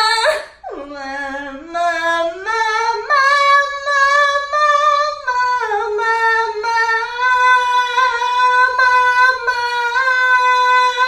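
A woman singing a belting exercise on repeated 'ma' syllables, climbing in steps over the first three seconds, then repeating a high held note.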